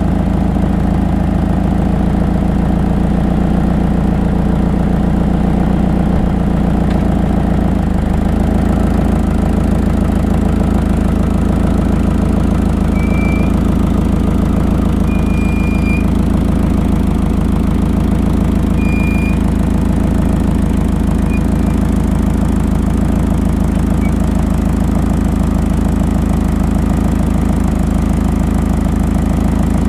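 2006 Toyota Camry engine and exhaust idling steadily. The car has a check engine light that the owner puts down to an exhaust leak and/or a clogged catalytic converter.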